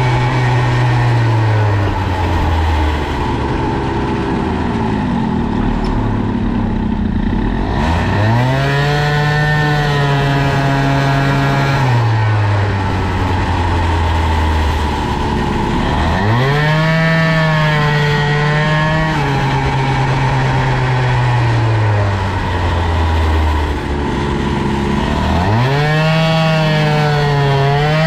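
Tuned 50cc two-stroke moped engine with a Polini cylinder and BOOST cylinder head, ridden hard. Three times it revs up steeply to a high steady note, holds it for a few seconds, then falls away as the throttle comes off.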